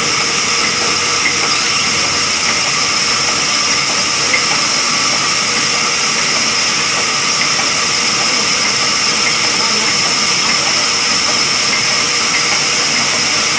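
Large sawmill band saw running, a loud steady hiss with a high whine that holds unchanged throughout.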